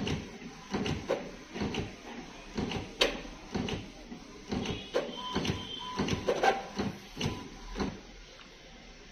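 Epson L3210 inkjet printer printing: the print-head carriage shuttles back and forth, with repeated short knocks and rattles as the paper feeds out. The sound stops about eight seconds in.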